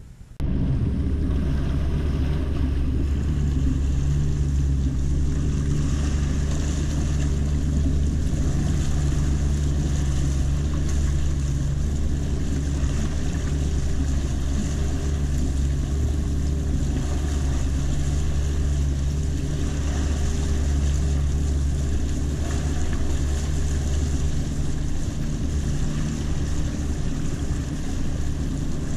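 Small boat's motor running steadily while the boat is under way, a low even hum with water and wind hiss over it. It cuts in abruptly about half a second in.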